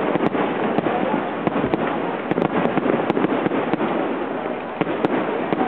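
Aerial fireworks bursting in quick succession: many sharp bangs and reports, several a second, over a continuous noisy din.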